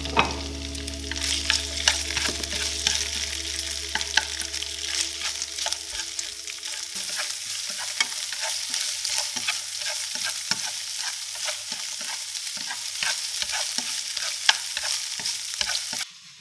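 Diced shrimp and garlic sizzling in oil in a nonstick frying pan, with a spatula stirring and scraping through them and clicking against the pan many times. The sizzling stops abruptly near the end.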